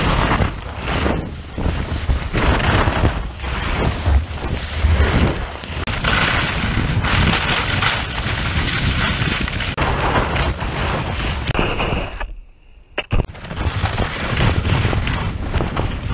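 Wind buffeting an action camera's microphone during a fast ski descent, mixed with skis hissing and scraping over spring snow in repeated turns, about one surge a second. The noise drops away briefly about three-quarters of the way through, then resumes.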